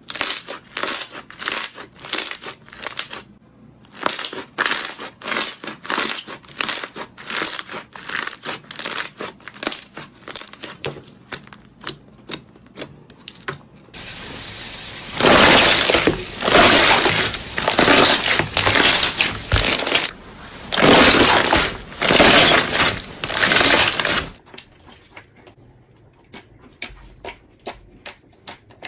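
Hands working slime: sticky clicks and pops about two to three a second. From about fifteen seconds in, a run of louder crackling, crinkly squishes follows, roughly one a second, and then softer clicks return near the end.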